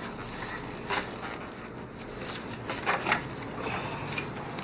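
Hand tools clicking and knocking lightly against engine parts during a throttle-body removal. A few short knocks come about one, three and four seconds in, over a steady background hiss.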